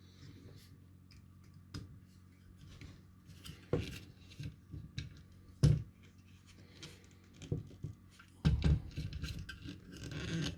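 Hands handling small objects on a workbench: scattered clicks and taps with a sharper knock about halfway through, then a stretch of rubbing and rustling near the end.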